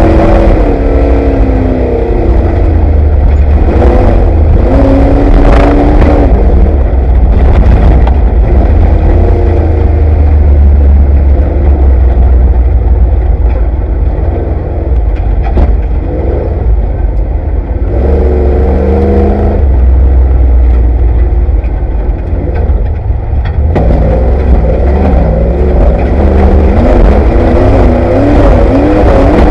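Off-road race vehicle heard from inside the cockpit: the engine revs up and down under throttle over a heavy low rumble. Sharp knocks and rattles come through, loudest around four to six seconds in and again in the middle.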